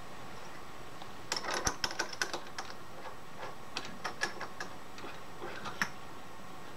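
Light metallic clicks and clinks, a quick cluster about a second in and then scattered single ones, as a shorter drill chuck and hand tools are handled and the chuck is fitted up onto the milling machine spindle.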